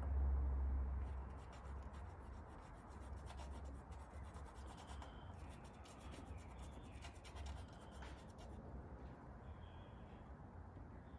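Gloved hands working a small plastic syringe against a gel-coated fibreglass panel, its tip rubbing and scratching on the surface as gel coat is pressed into pinholes. The work comes with a run of faint fine clicks and ticks. A low rumble at the start fades within the first couple of seconds.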